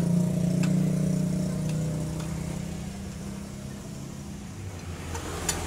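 A steady low engine-like hum, louder in the first couple of seconds and then easing off, with a few light metallic clicks of hand tools.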